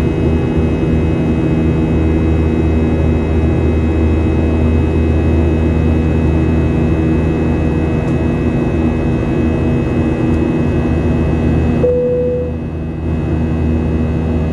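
Cabin noise of a Boeing 737-800 in flight, heard from a window seat beside the wing: the CFM56-7B turbofans' steady drone with several constant hums over a low rumble. About twelve seconds in the noise dips briefly and a short steady tone sounds.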